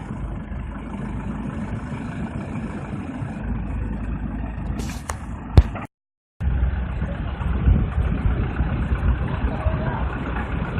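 Engine and hydraulics of an HFPV-1 photovoltaic pile-driving rig running steadily. About five seconds in there is a short hiss, then a sharp click. The sound cuts out for half a second, then the running resumes.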